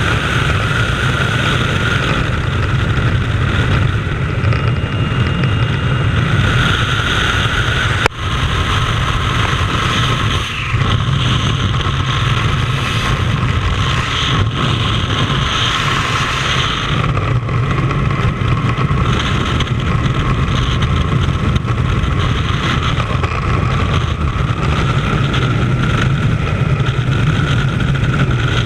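Loud, steady rush of freefall wind over a helmet-mounted camera during a skydive, with a brief dropout about eight seconds in.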